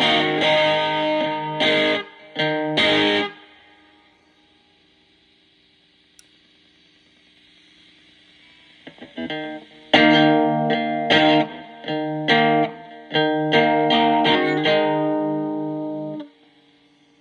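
Electric guitar played through a breadboarded Distortion+ style distortion circuit, its clipping diodes set by a diode substitution box. Short distorted chord stabs, a pause of about six seconds with only faint hiss, then another run of stabs that stops abruptly near the end.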